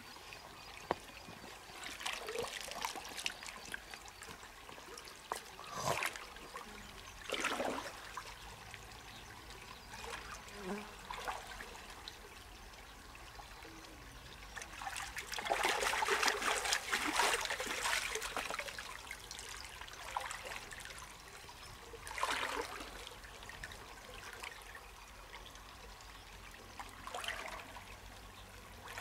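River water splashing and trickling in irregular bursts, the longest and loudest lasting a few seconds about halfway through.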